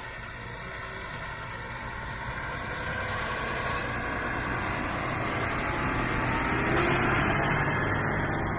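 John Deere 6250R tractor's six-cylinder diesel engine running steadily, growing louder toward about seven seconds in, then easing slightly.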